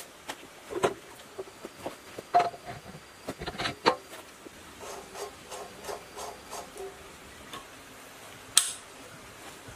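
Scattered metallic clinks and knocks as parts are handled and fitted on a horizontal single-cylinder diesel engine. One sharp, loud clank comes near the end as the starting crank handle goes into the engine.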